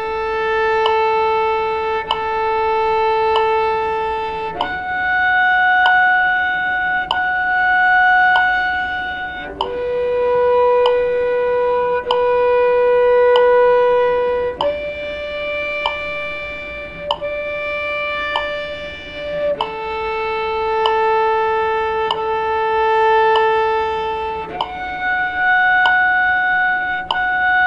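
Cello playing long bowed notes, two pitches held together, changing to a new pair about every five seconds, over a steady tick about once a second.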